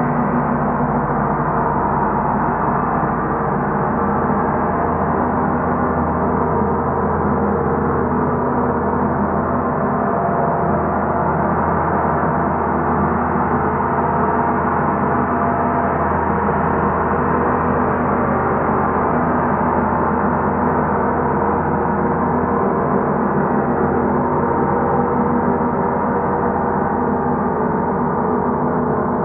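Large gongs played continuously with soft round-headed mallets, building a dense, steady wash of many overlapping ringing tones with no single strike standing out.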